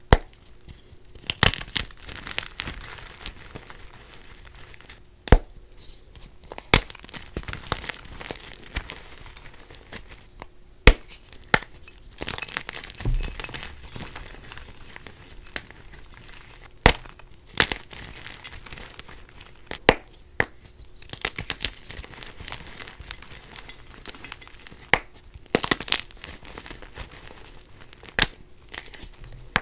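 A block of dyed gym chalk being broken and crushed by hand. There are sharp cracks every few seconds as chunks snap apart, with soft, dry crunching and crumbling in between as the pieces are squeezed into powder.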